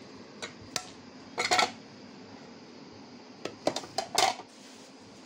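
Chopped onion being spooned into a mixer-grinder jar: scattered knocks and clatters of a wooden spoon against the plate and jar. A quick cluster comes about a second and a half in and another near four seconds in.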